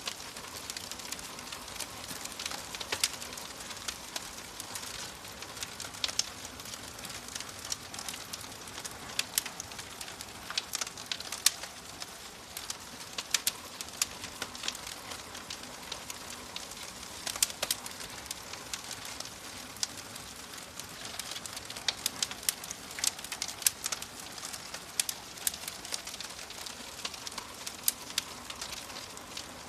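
Fire crackling: a steady soft hiss with irregular sharp pops and snaps, coming in clusters of several a second at times.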